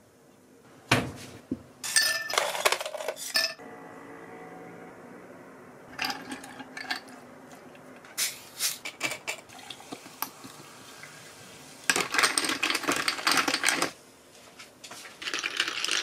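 Kitchen handling sounds: knocks and clinks of dishes and glassware, including tongs dropping sliced lemons into a tall glass. Near the end comes a dense stretch of noise lasting about two seconds.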